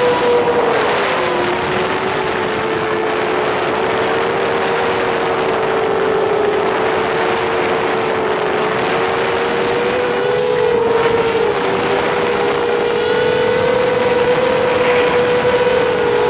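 Seven-inch FPV racing quadcopter's brushless motors and propellers whining in flight, picked up by a camera mounted on the drone. Two close, steady tones drift slightly up and down in pitch over a rush of wind and propwash.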